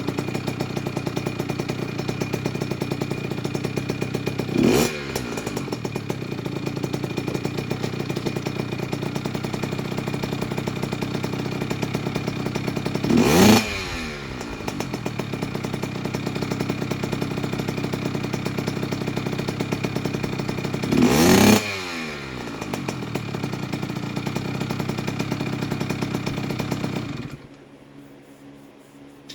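Kawasaki KX65's two-stroke single-cylinder engine idling steadily during a break-in heat cycle on the freshly rebuilt motor, blipped three times, each a quick rise and fall in pitch. The engine sound stops abruptly near the end.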